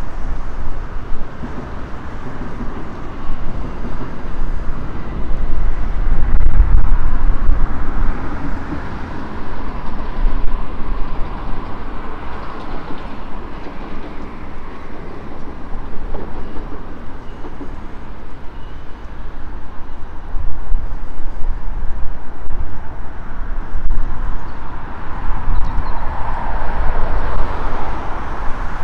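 Wind buffeting the microphone in gusts, heavy low rumbling that swells and fades, over the steady noise of road traffic crossing the bridge.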